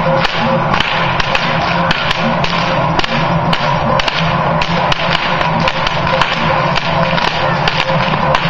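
Swiss carnival whip (Geissel) cracked over and over in a steady rhythm, sharp cracks over the continuous clanging of large Swiss cowbells (Trycheln) swung by a marching Trychler group.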